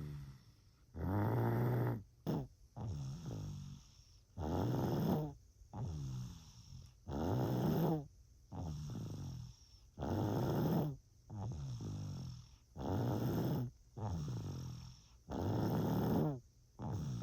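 Rhythmic snoring: six loud snores, about one every three seconds, each followed by a softer breath out.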